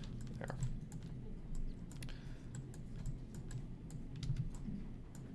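Light, irregular clicking of computer keys, several clicks a second, over a low steady hum.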